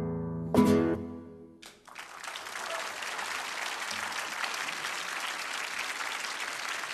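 A final acoustic guitar chord is strummed and rings out over the first second. From about two seconds in comes steady applause.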